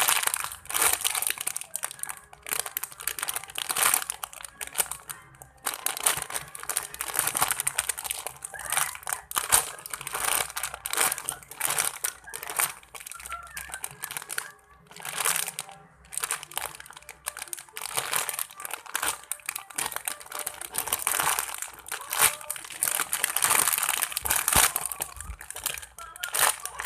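Crinkling and crackling of plastic in irregular bursts as a squishy toy is handled and squeezed.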